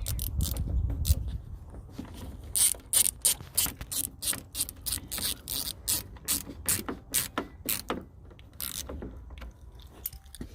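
Ratchet driver with a T30 Torx bit turning a door-handle screw home: a long run of sharp ratchet clicks, a few a second, starting about two and a half seconds in after some dull handling noise.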